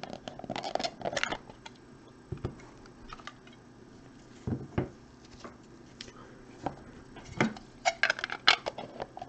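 Packs of trading cards being opened and the cards handled: irregular crinkles, rustles and light clicks, with a cluster of sharper crackles near the end.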